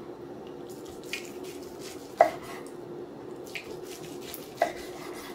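Knife slicing through a smoked beef flat on a wooden end-grain cutting board, the blade knocking against the board a few times, loudest about two seconds in and near the end.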